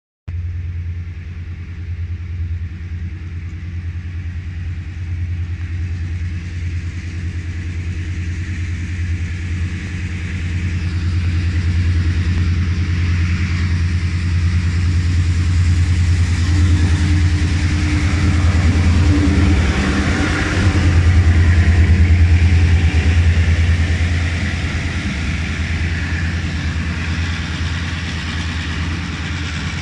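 Two KCSM diesel-electric road locomotives, 2088 leading and 2068 trailing, working under load as the train climbs the line: a steady low engine drone that grows louder as they approach, is loudest as they pass about two thirds of the way in, then eases as the work cars follow.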